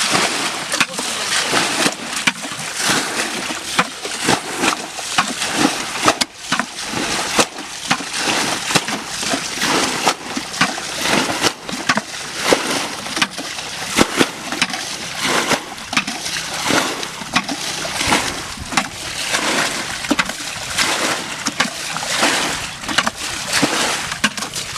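Water splashing and sloshing continuously, broken by many short, sharp splashes, as people wade and grope in shallow water to catch fish by hand.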